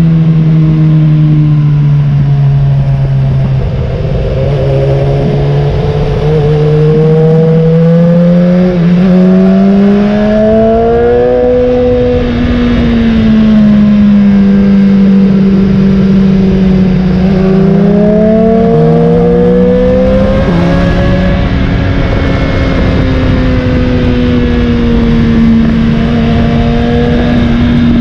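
BMW S1000XR's inline-four engine running while ridden, its pitch climbing and falling with the throttle through the bends. The pitch drops suddenly a few times as gears change.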